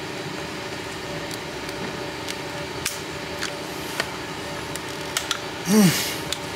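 Scattered light clicks and taps of a plastic window switch and bezel being worked apart by hand, over a steady hum. Near the end, a short breathy grunt of effort.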